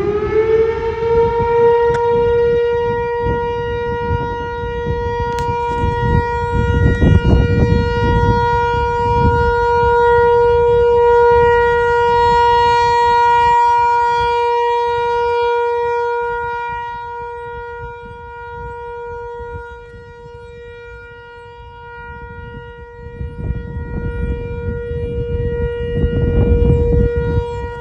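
Whelen outdoor tornado warning siren sounding its weekly test: the tone rises over about a second, then holds one steady pitch, swelling and fading in loudness as it goes. A low rumbling noise comes and goes underneath.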